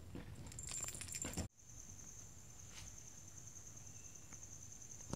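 Two kittens play-fighting on a fabric-covered sofa: soft rustling and scuffling of paws and bodies on the blanket. About a second and a half in, the sound cuts off abruptly, and afterwards a steady high-pitched trill runs faintly in the background.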